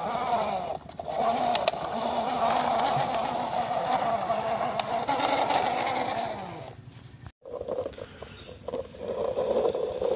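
Plastic toy vehicles' wheels rolling across rough concrete as they are pushed by hand, a steady rolling noise. It breaks off about seven seconds in and starts again a moment later.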